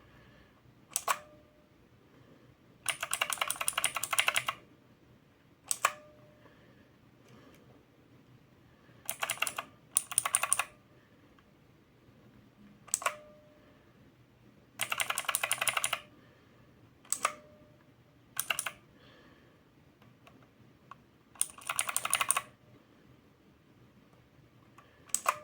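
Keys on an XPG Summoner Mini 60% mechanical keyboard with clicky Outemu Blue switches, giving a typewriter-like click. Single presses and quick runs of clicks come every few seconds, with pauses between.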